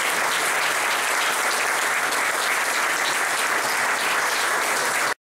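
Audience applauding steadily at the end of a speech, cut off suddenly near the end.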